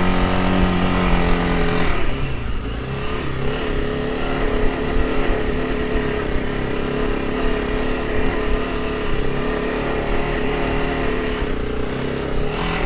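Honda CRF300L Rally's single-cylinder four-stroke engine pulling under load up a steep dirt-trail climb. About two seconds in its note shifts and drops a little, then holds steady.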